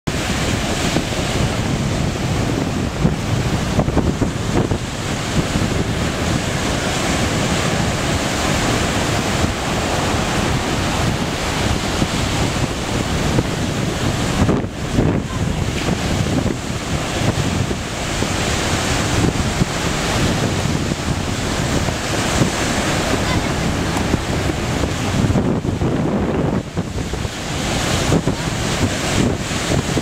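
Atlantic Ocean surf breaking and washing in, a loud continuous wash with wind buffeting the microphone throughout.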